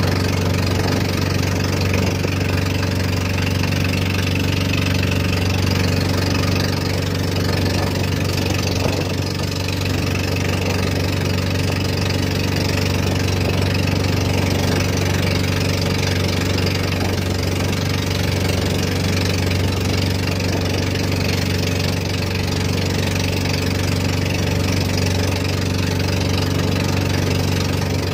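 Engine of a motorized outrigger boat (bangka) running steadily under way, a low, even drone that holds the same pitch and level throughout.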